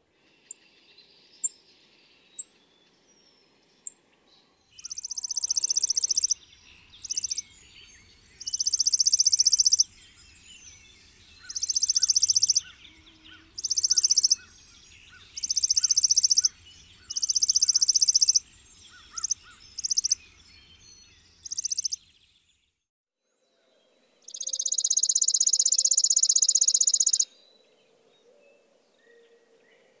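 Chipping sparrow singing: a few single high chip notes, then a series of rapid trills held on one high pitch, each lasting up to about a second and a half, with short pauses between them. The longest trill comes near the end.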